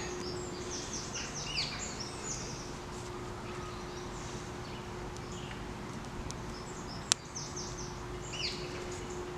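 Woodland birds singing: quick series of short, high, falling chirps near the start and again near the end, over a faint steady hum. A single sharp click about seven seconds in.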